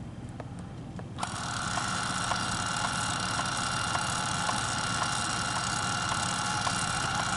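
Handheld label maker printing a long 12-inch label. Its small feed motor starts about a second in and runs with a steady high whine and a light tick about twice a second.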